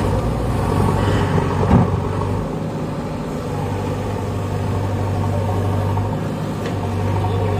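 Diesel engine of a JCB 3DX backhoe loader running steadily under load while the machine is stuck in mud, with one sharp knock about two seconds in. The low drone weakens about a third of the way in and comes back near the end.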